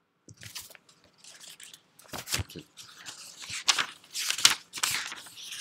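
Irregular crackling and crinkling noises close to the microphone, coming in uneven spurts that grow louder from about two seconds in.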